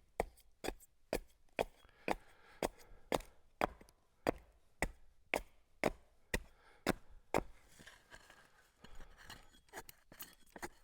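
Hand tool knocking into cedar as shakes are made by hand: a steady run of sharp strikes about two a second. After about seven seconds the blows stop, giving way to softer scraping and a few light taps.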